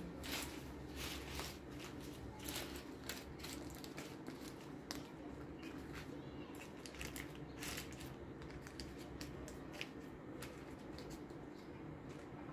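Crumpled baking paper crinkling and rustling as hands spread it and tuck it over a glass baking dish, in a run of short, irregular crackles.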